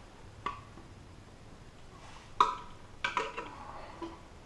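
Sharp clinks and taps of bolt hardware and tools against a porcelain toilet tank while its tank-to-bowl bolts are tightened: one clink about half a second in, the loudest a little past the middle, then a quick run of smaller ones.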